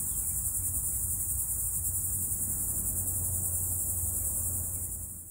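Steady, high-pitched chorus of summer insects, a dense fast trill, with a low rumble underneath; it cuts off suddenly at the end.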